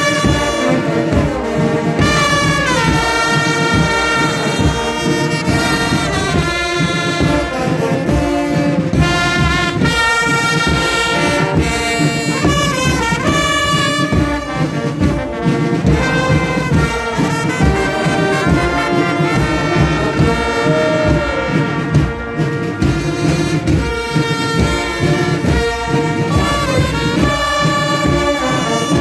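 Carnival brass band playing a marching tune over a steady drum beat, heard from inside a packed crowd.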